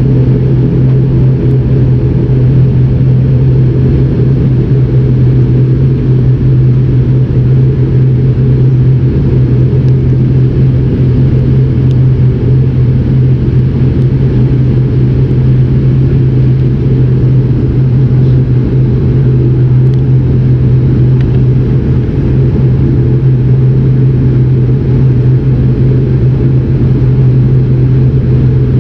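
ATR turboprop's engine and six-bladed propeller heard inside the cabin beside the propeller: a loud, steady drone with a strong low hum as the plane moves on the ground.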